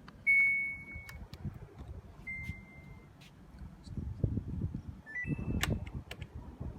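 Samsung FlexWash washing machine's control panel beeping: a long beep, then a second slightly shorter beep, then a quick rising three-note chime near the end, with button clicks and knocks between them.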